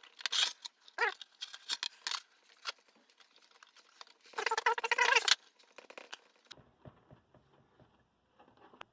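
Rubber door gasket being pressed and worked into place on a dishwasher's acrylic door panel: scattered clicks and rubbing, with a short squeak about a second in and a longer squeaky rubbing stretch between about four and five seconds in.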